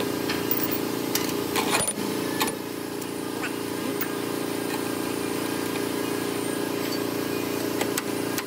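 Steel collars and cutter clinking as they are fitted onto a spindle moulder's spindle, with a few sharp metal knocks, the last as a wrench goes onto the spindle nut near the end, over a steady hum.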